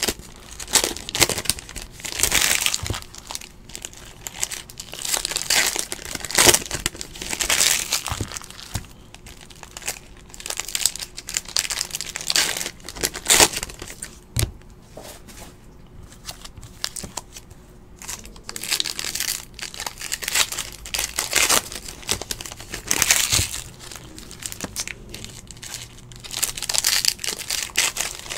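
Foil trading-card pack wrappers crinkling and tearing as packs are ripped open by hand, in irregular bursts with a few sharper snaps.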